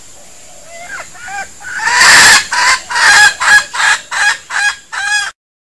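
A red junglefowl rooster, the decoy bird used for luring wild junglefowl, calling. A few soft notes lead into one long loud call, then a string of about seven sharp repeated calls at roughly two a second, which cuts off abruptly.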